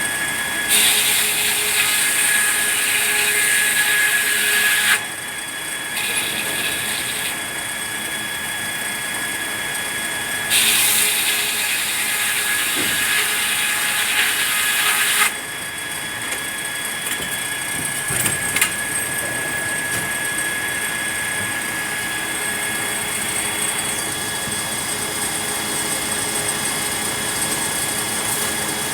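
Sawmill machinery running steadily with a high whine. Twice a saw cuts through red pine for about four seconds, a louder, hissier noise that starts and stops sharply, first about a second in and again near the middle.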